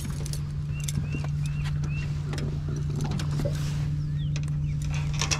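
Electric trolling motor running with a steady low hum as it moves the boat.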